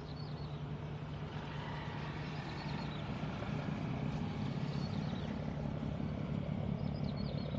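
An engine running with a steady low hum that grows gradually louder.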